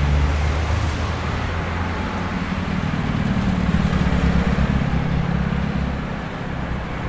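Busy city traffic at a crossroads: a steady rumble of car, bus and truck engines and tyre noise. A nearby engine's low drone rises and falls a little in pitch around the middle.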